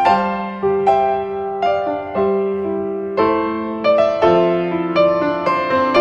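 Slow background piano music: notes struck about once a second and left to fade.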